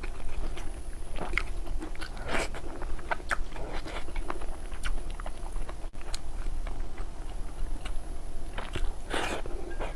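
Close-miked chewing and biting of food: a string of short wet mouth clicks, with two louder, longer noisy bursts about two seconds in and near the end, over a steady low hum.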